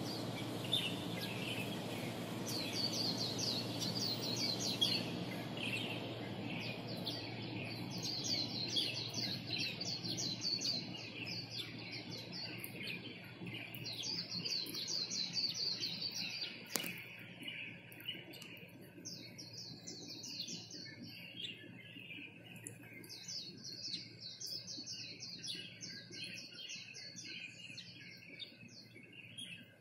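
Small birds chirping in rapid repeated series, several overlapping, over a low steady background hum that fades after the first half. One sharp click a little past halfway.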